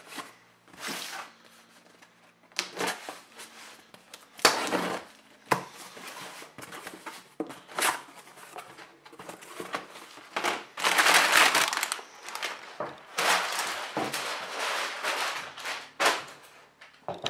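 Cardboard shipping box being opened: a knife slitting the packing tape and the flaps pulled back, then brown kraft packing paper rustled and crumpled in irregular bursts that grow louder and longer in the second half.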